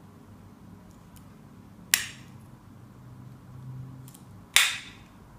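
Victorinox Swiss Army knife tools snapping into place against their springs: two sharp metallic snaps, about two seconds in and again near the end, each with a fainter click shortly before it.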